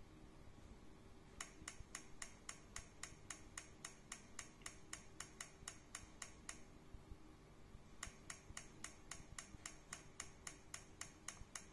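Faint rapid, even ticking, about five ticks a second, from a Runyes 3DS intraoral scanner capturing a dental model. It starts about a second and a half in, stops for about a second and a half in the middle, then picks up again, over a low steady hum.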